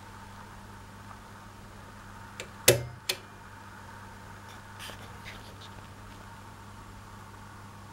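A sharp click with a low thump about three seconds in, followed at once by a lighter click, as the Tesla 326A Tosca valve radio is switched on; the rest is a faint steady hum while its tubes warm up, with no broadcast yet.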